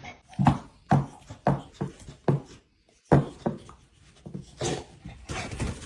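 A dog making short, repeated vocal sounds, about two a second, with a brief pause about three seconds in.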